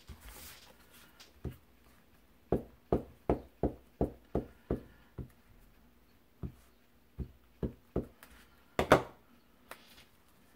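Hands handling collage papers on a cutting mat: about eight quick, light taps at roughly three a second, then a few scattered knocks, the loudest a little before the end.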